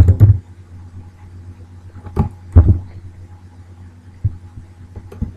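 Computer keyboard keystrokes: a few scattered clacks, about five in all, over a steady low electrical hum.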